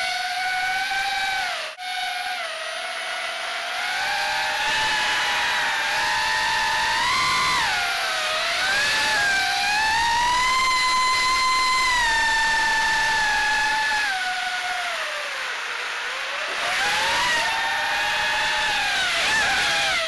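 Alien 5-inch FPV quadcopter's Sunnysky X2204S brushless motors with HQ 5x4x3 three-blade props whining, the pitch rising and falling with the throttle. It dips briefly about two seconds in, climbs to a high, held whine through the middle, eases off, then rises and falls again near the end.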